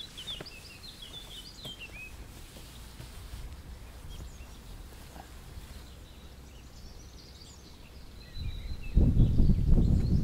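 Small birds chirping in the background over a faint steady outdoor hiss, then a loud, irregular low rumble from about eight and a half seconds in.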